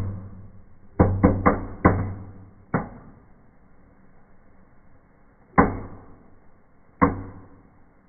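Indoor fireplace firework, a paper cracker ('Knallbonbon'), going off in a series of sharp bangs: four in quick succession about a second in, one more near three seconds, and two single bangs later on, over faint fizzing sparks.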